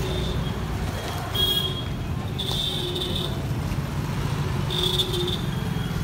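Busy street traffic: motorbike and scooter engines running in a steady rumble, with vehicle horns honking three times, the middle honk the longest.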